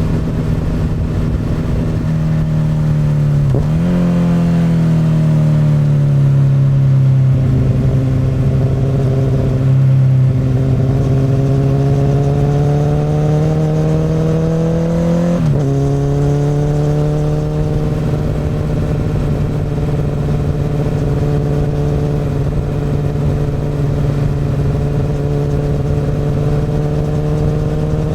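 Honda CBR1000RR's inline-four running through an Akrapovic exhaust while riding. The engine note drifts slowly down and up, and jumps abruptly in pitch twice, about 4 and 15 seconds in, at gear changes.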